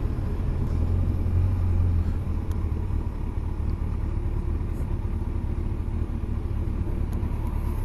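Motorcycle engine and road rumble while riding, a steady low drone that eases off about two seconds in as the bike slows.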